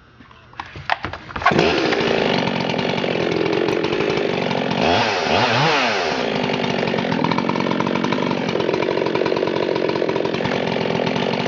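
Two-stroke chainsaw engine running. After a few clicks it comes in about a second and a half in, runs steadily, and revs up and back down once about halfway through.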